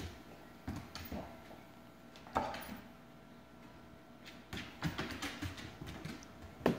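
A dog's paws thumping and claws clicking on a hardwood floor as it pounces and paws at a bug: a scatter of separate knocks, the loudest about two and a half seconds in, with a quick run of them near the end.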